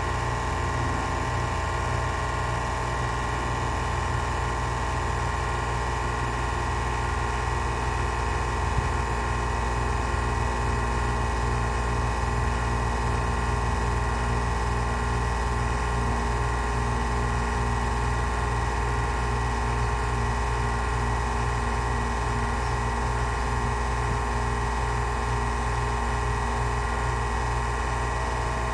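Carrier air conditioner unit running, a steady low hum with a few constant tones above it and a light hiss, unchanged throughout.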